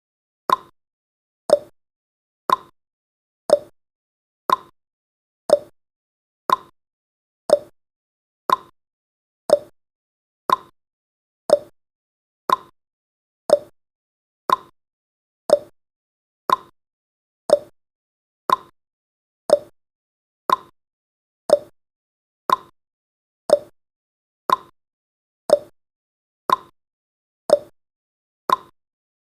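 Countdown timer's clock-tick sound effect, one short sharp tick each second, steady throughout.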